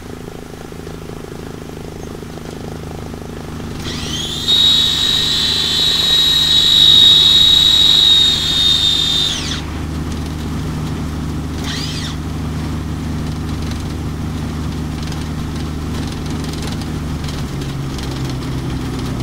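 The Bird Dog's piston engine running steadily in the cockpit. For about five seconds a loud, high, steady whistling tone sounds over it, sliding up as it comes in and down as it cuts off. Near the end the engine note drops a little.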